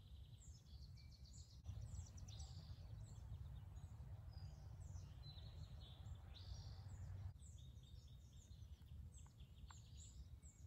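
Faint outdoor ambience: scattered high bird chirps over a steady low rumble.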